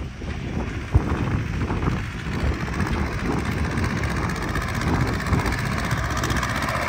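Tractor diesel engine running steadily, with one sharp knock about a second in.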